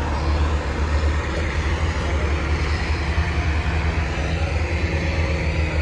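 Diesel farm tractor engines running with a steady low rumble.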